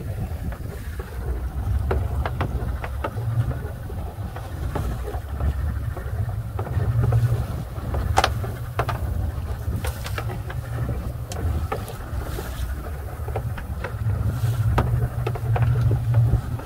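Wind rumbling on the microphone over the wash of a choppy sea around a small open fishing boat, with a few sharp clicks and knocks.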